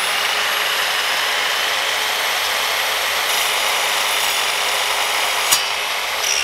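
Electric mitre saw motor running at full speed with a steady high whine as its blade cuts crosswise through a deer's hoof. A sharp click comes near the end.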